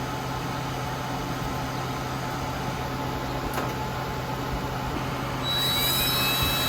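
Air conditioner running with a steady hum. About five and a half seconds in, a power drill spins up with a rising whine and keeps running.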